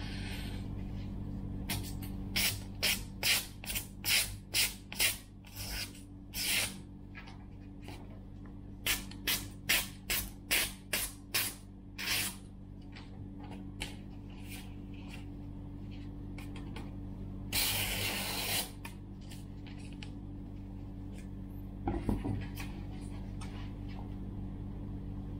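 Japanese kitchen knife slicing through hand-held magazine paper: a run of short swishes about two a second, a pause, then a second run, followed by a longer rustle of paper a few seconds later. A steady low hum sits underneath.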